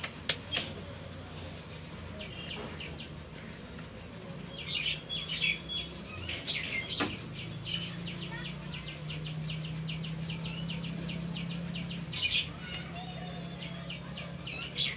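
Hands patting and slapping a ball of roti dough between the palms in quick runs of soft slaps, with small birds chirping.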